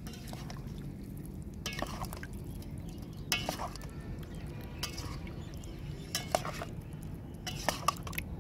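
A steel spoon stirring whole potatoes through thin spiced yogurt in a steel bowl, with irregular clinks and knocks of the spoon against the bowl.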